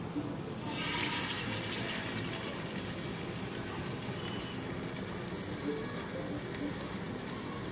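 Marinated pomfret laid into well-heated oil in a flat pan, setting off a sudden sizzle about half a second in that is loudest around a second and then settles into steady frying.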